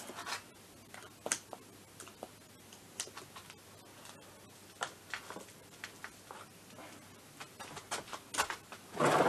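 Light metallic clicks and taps of nuts and washers being fitted and turned by hand onto the cylinder studs of a scooter engine. A louder brief rustling noise comes near the end.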